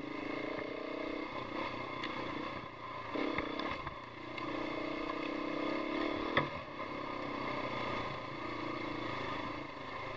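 Single-cylinder four-stroke engine of a GasGas 700 dual-sport motorcycle running on a dirt trail, its note rising and falling with the throttle. A sharp knock comes a little past halfway.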